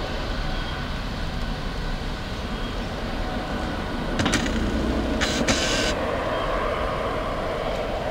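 Twin-engine jet airliner's turbofans at takeoff power: a steady, distant rumble as it rolls down the runway and climbs away. A couple of brief crackles come about four and five seconds in.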